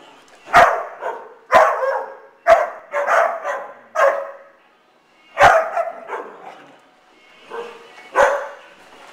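Dog barking repeatedly in short, sharp barks, with a pause of about a second about five seconds in.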